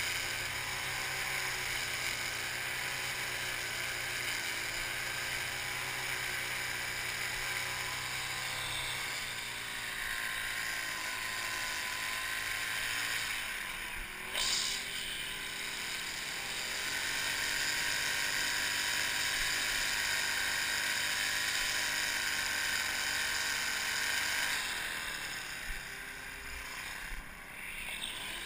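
String trimmer running steadily as it edges grass along a concrete curb, its motor whir wavering slightly in pitch, with a brief louder moment about halfway through.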